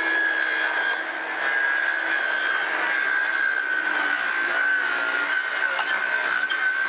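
Ryobi circular saw running under load as it cuts through a plastic lattice panel, a steady whine over the rasp of the blade in the cut.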